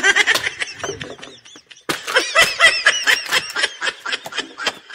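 A person laughing in quick bursts, in two bouts with a short pause between.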